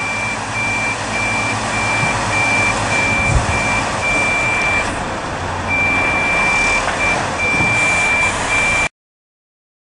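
Suction excavator running, with a steady rush of engine noise and air, while a high electronic warning beeper sounds one to two times a second. After about six seconds the beeps lengthen into longer tones. Everything cuts off suddenly near the end.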